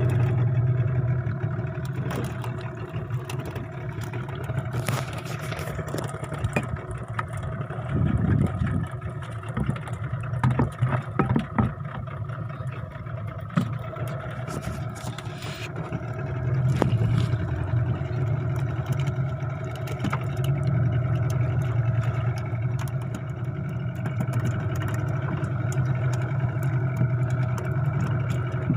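Small fishing boat's engine running steadily, with a run of knocks and clatters about eight to twelve seconds in.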